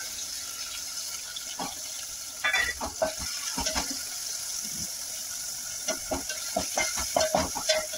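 Soaked green moong dal sizzling in hot oil in a metal pot, with a slotted spatula scraping and clicking against the pot as it is stirred, the clicks coming more often in the second half.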